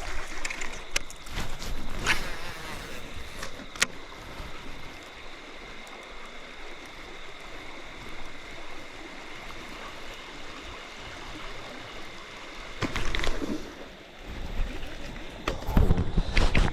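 Fast-flowing river water rushing steadily, with a thin high insect drone held on one pitch. A few sharp clicks come early on, and loud bursts of noise come about two thirds of the way in and again near the end.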